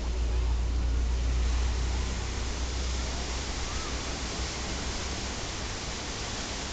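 Steady hiss of surf washing onto a sandy beach, with wind rumbling on the microphone, heaviest in the first two seconds or so.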